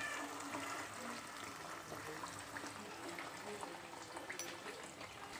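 Potato fries deep-frying in hot oil in a wok, a steady sizzle dotted with small crackles.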